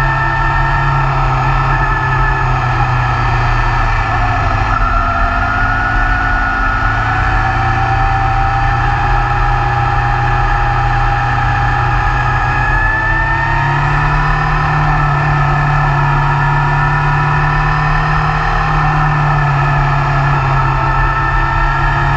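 2016 BMW S1000R's inline-four engine running on a steady climb, heard from the bike itself with wind rushing over the microphone; the engine note rises about thirteen seconds in.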